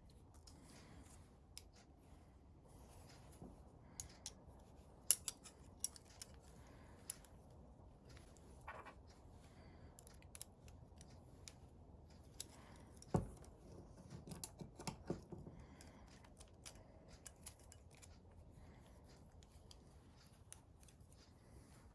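Irregular small clicks, snips and taps of hand tools being worked, with a few sharper clicks about five seconds in and a knock about thirteen seconds in.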